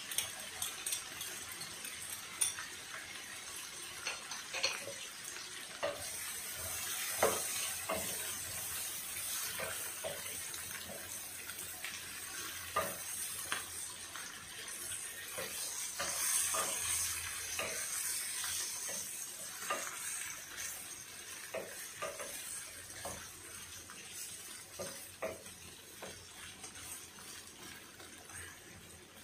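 Chicken legs, corn and vegetables sizzling in a stone-coated frying pan while being stirred with a wooden spatula, with irregular knocks and scrapes of the spatula against the pan. The sizzling grows louder about six seconds in.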